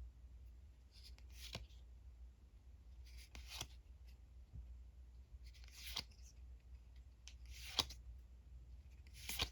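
Trading cards being slid and flipped one at a time, five short soft swishes each ending in a light snap, about every two seconds.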